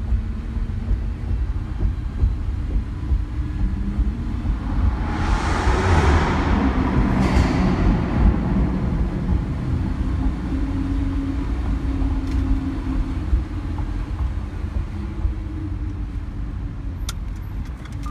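Lamborghini Huracán LP610-4's V10 engine running at low speed, heard from inside the cabin as a steady low rumble. A rushing noise swells and fades about five to eight seconds in, and a few sharp clicks come near the end.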